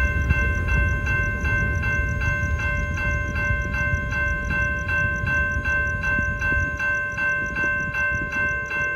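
Railroad crossing bell ringing steadily at about two strokes a second, over the low rumble of a passing freight train that grows fainter.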